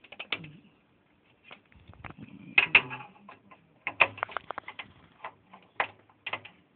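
Irregular sharp clicks and taps of small metal parts being handled at the back of a desktop computer case, as the video card's bracket screw is put back in with a Phillips screwdriver. The loudest clicks come a little before halfway and again around two thirds in.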